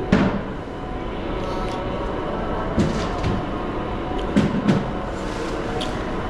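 Train running at a station platform, a steady rumble, with a few sharp knocks: one right at the start and others about three and four and a half seconds in.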